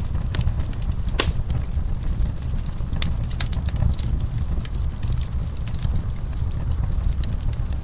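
Wood fire in a fireplace crackling, with irregular sharp pops and snaps (a louder one about a second in) over a steady low rumble.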